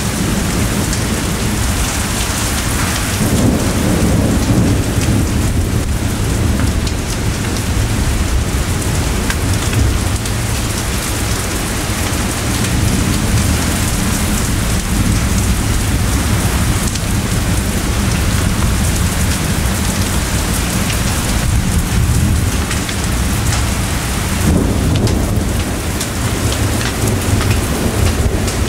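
Heavy rain falling steadily during a thunderstorm, with rolling thunder rumbling deep underneath and swelling louder twice, a few seconds in and again near the end.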